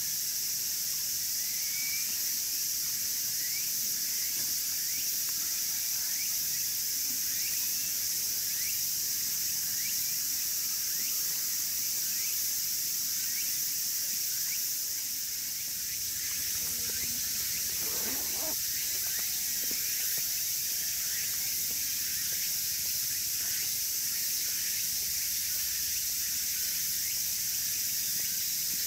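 A steady, high-pitched chorus of insects shrilling without a break, with faint short chirps scattered over it.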